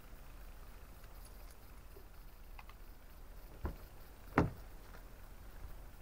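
Car door being unlatched and opened: two sharp clunks under a second apart, the second louder, after a few faint clicks.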